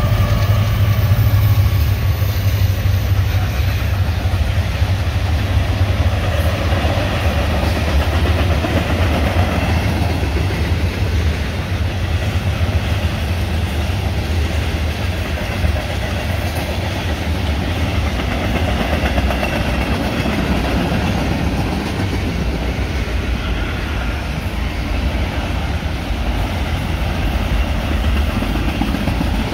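Union Pacific mixed freight train passing close by: a diesel locomotive horn fades out in the first couple of seconds while the locomotives' engines rumble past, then the steady rolling noise of the freight cars' wheels on the rails carries on.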